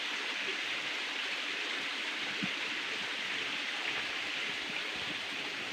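Steady, even hiss of forest background noise, with no distinct events.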